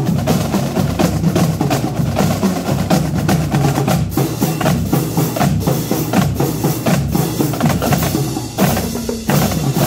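Marching drum line of snare, tenor and bass drums playing a fast, dense cadence of rapid strikes and rolls. Near the end it briefly thins out before a loud burst of strikes.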